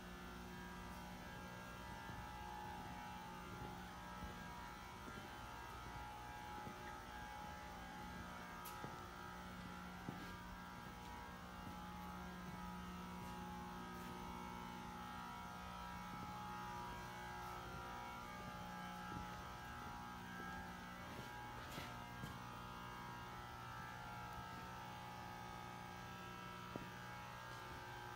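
Steady, faint electrical hum, with a few faint clicks.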